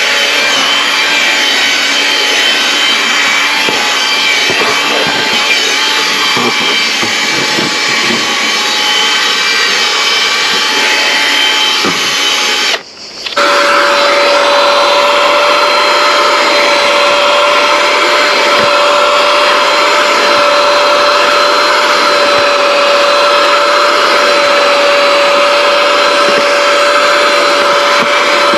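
Vacuum motor running steadily with a whine. It drops out for about half a second near the middle and comes back with a cleaner, steadier tone.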